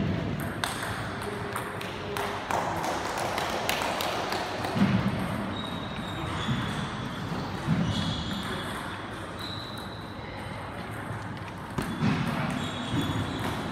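Table tennis play: the ball clicking off the bats and the table in quick, irregular taps, spread through two rallies. The taps echo in a large sports hall.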